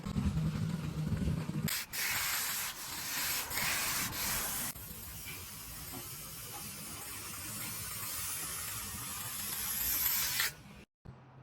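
Steady scraping hiss from laying resin-bound stone driveway surfacing, louder in the first few seconds, then softer, swelling again before it cuts off abruptly near the end. A low hum underlies the first second and a half.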